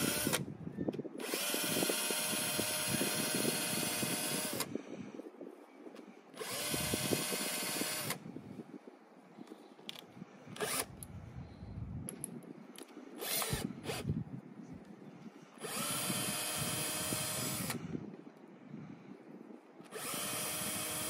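Cordless drill running in four bursts of two to three seconds, each a steady whine that winds up and winds down, spinning a metal part in its chuck against a cloth held to it. Light clicks and handling sounds between the runs.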